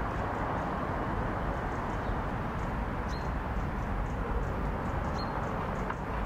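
Steady outdoor background noise at an even level, with faint light ticks and a couple of short high chirps about three and five seconds in.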